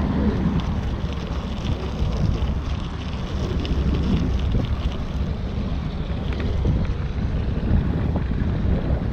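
Wind buffeting a cyclist's action-camera microphone while riding: a loud, steady low rumble, with a few faint scattered ticks.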